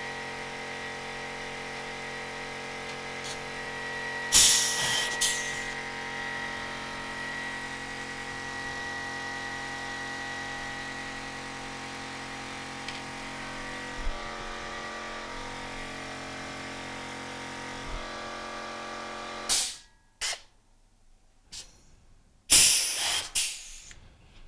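Compressed-air rivet nut tooling at work: a steady machine hum with several tones that cuts off suddenly about 20 seconds in. Loud bursts of air hiss come twice, about 4 seconds in and again near the end, as the pneumatic rivet nut gun is cycled.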